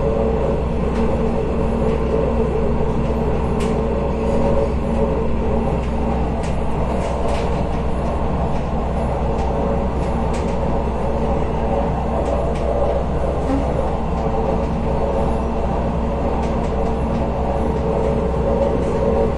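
Steady running rumble and hum inside a moving train carriage, with faint clicks here and there.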